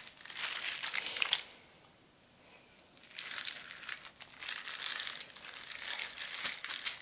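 Plastic-gloved hands squishing and tossing sliced pork in a thick gochujang marinade, wet squelching with the crinkle of the disposable gloves. It stops for about a second and a half after the first second and a half, then resumes as the coated meat is scooped and pressed into a plastic container.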